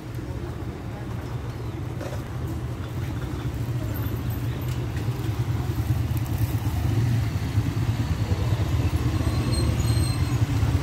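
Street traffic close by: car and motorcycle engines running as vehicles move slowly past, a steady low rumble that grows louder toward the end.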